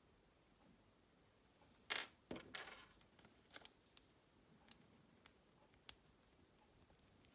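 Kinder Surprise egg and its toy handled by hand: a short crackling rustle about two seconds in, then a handful of light, sharp clicks.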